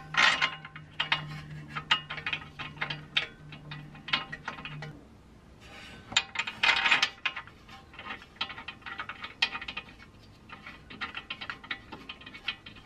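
Irregular metallic clicks and clinks as bolts are started by hand into a suspension knuckle to fit a roll centre adjuster, with a denser cluster of clicks about seven seconds in. A low steady hum sounds for the first five seconds.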